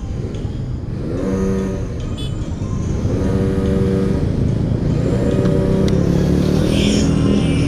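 Honda Scoopy scooter running and pulling away into traffic, with low wind and road rumble on the helmet microphone that grows louder after a few seconds. Background music with held notes about every two seconds plays over it.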